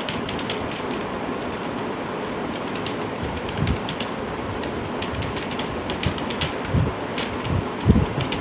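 Computer keyboard being typed on, with irregular sharp key clicks and a few heavier low thuds over a steady background hiss.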